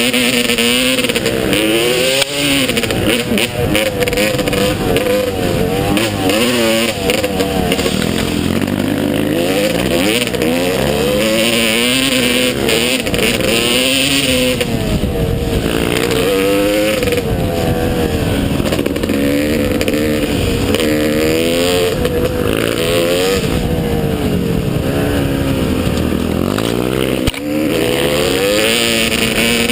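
Motocross motorcycle engine revving hard, its pitch climbing and dropping back over and over as the throttle opens and closes.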